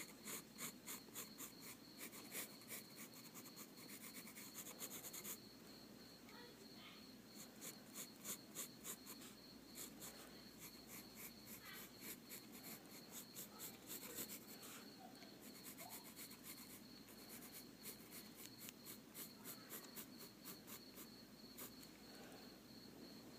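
Faint scratching of drawing strokes on paper, several quick strokes a second in short runs with pauses between, over a faint steady high whine.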